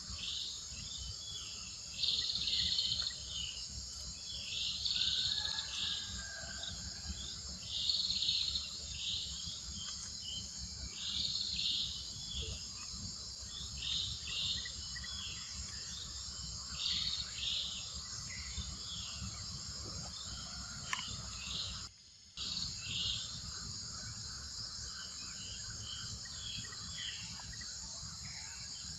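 Forest ambience: a steady chorus of insects with short chirping calls repeating every second or two, over a low rumble. The sound cuts out briefly about three-quarters of the way through.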